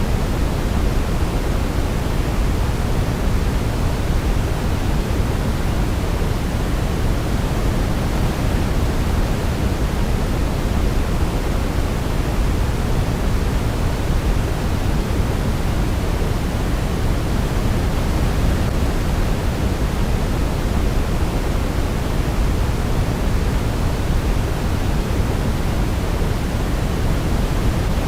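Steady, unchanging sleep-aid noise, a deep even hiss heavier in the bass than in the treble, like pink noise. No melody can be picked out.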